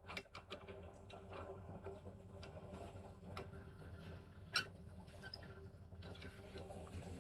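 Light clicks and taps of parts being handled at a lathe, scattered and irregular over a faint steady hum, with one sharper click about four and a half seconds in.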